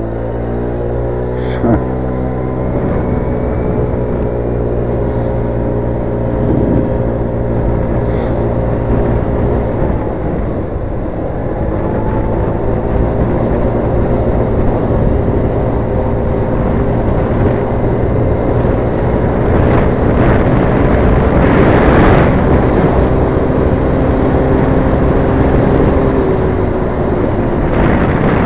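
Motor scooter engine running at steady road speed, its hum dipping briefly around ten seconds in and easing down again near the end. A loud rush of noise comes a little past twenty seconds in, over a constant low rumble of wind and road.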